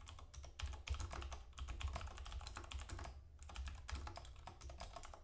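Typing on a computer keyboard: a quick, uneven run of key clicks, with a short pause about three seconds in.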